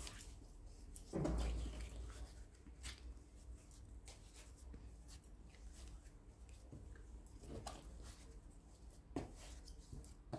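Bread dough being kneaded by hand on a floured silicone mat: faint soft pressing, rubbing and squishing, with a louder low thump about a second in and another knock near the end.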